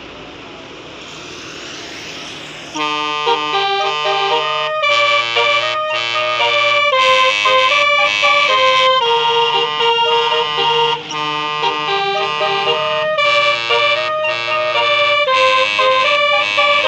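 Basuri telolet bus air horn playing a quick, loud melody of changing multi-note chords, starting about three seconds in after a rushing road noise.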